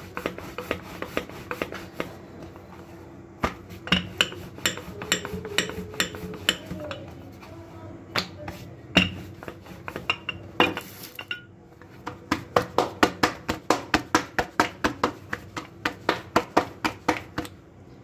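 Wooden rolling pin rolling out roti dough on a round wooden board, knocking and clacking against the board. The knocks come scattered at first, then in a quick run of about four a second near the end.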